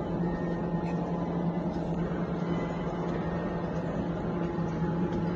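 Steady electric motor hum of a dumpling-wrapper rolling machine running, one low even tone with fainter higher tones over it.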